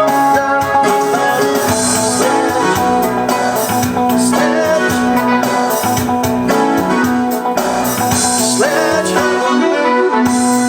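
Piano played along with a sequenced MIDI backing track from a Roland E-500 keyboard, with drums and a gliding melody line, in a steady groove.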